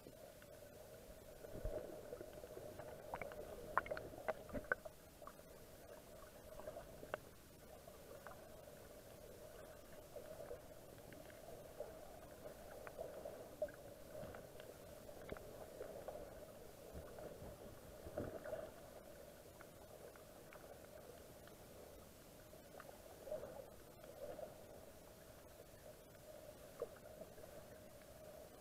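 Muffled underwater sound heard through an action camera's waterproof housing: a steady faint hum with scattered knocks and clicks, the thickest cluster of knocks about four seconds in.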